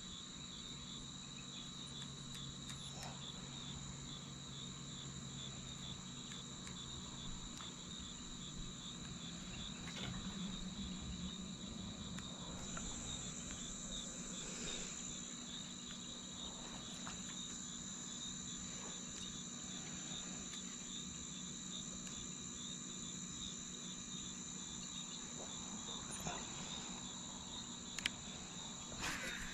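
Steady, high-pitched chorus of insects, with a couple of small clicks near the end.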